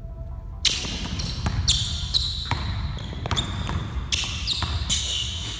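Basketball dribbled repeatedly on a hardwood gym floor, a string of sharp bounces at an uneven pace, with short high squeaks of sneakers on the floor as the players cut.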